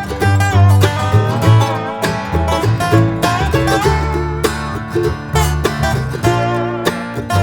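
Background music track with plucked banjo and guitar in a bluegrass or country style, with a steady bass line.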